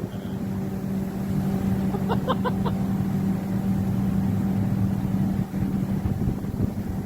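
A steady low mechanical hum, like a running engine, with a quick run of four short high notes from a blue-and-gold macaw about two seconds in.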